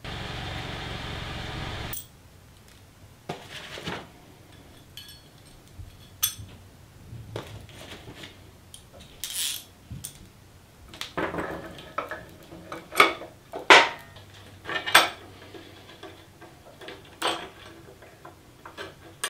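Small metal hardware clinking and clattering as bolts, washers and steel brackets are handled and fitted together, the sharp clinks coming in quick bunches, thickest and loudest a little past the middle. A steady hiss fills the first two seconds and cuts off suddenly.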